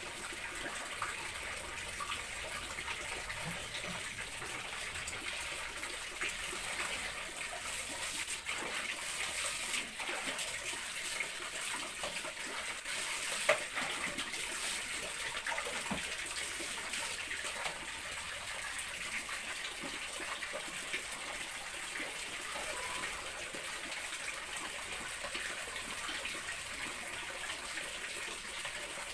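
Water running steadily, like a tap gushing, with one sharp knock about halfway through.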